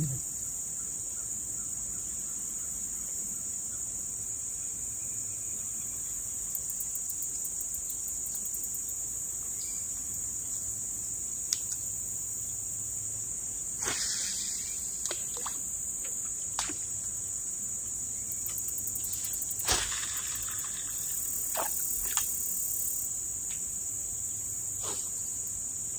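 Steady high-pitched insect chorus, with a few scattered sharp clicks and knocks.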